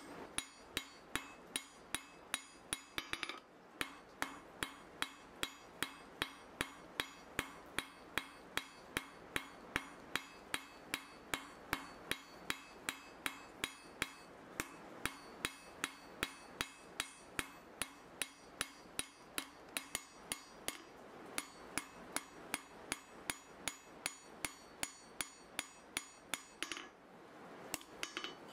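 Hand hammer striking hot mild steel on an anvil: a steady run of ringing blows, about two to three a second, with a short break a little over three seconds in and another near the end.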